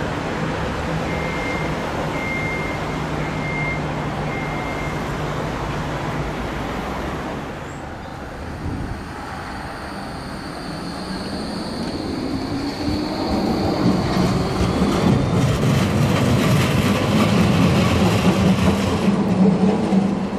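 Street traffic with four short high beeps early on. Then a Bombardier Flexity Classic tram runs by on street track: its electric drive gives a tone that rises in pitch and a thin high whistle, and it gets louder as it comes close.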